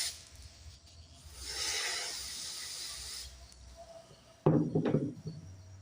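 A hiss of spray lasting about two seconds, as the gummed-up carburetor float needle is cleaned. Near the end comes a brief loud clatter of parts being handled.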